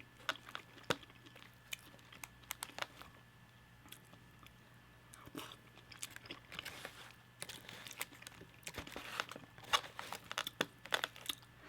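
Close-up chewing and crunching of crispy fried food, with sharp wet mouth clicks scattered throughout, thinning out for a couple of seconds in the middle.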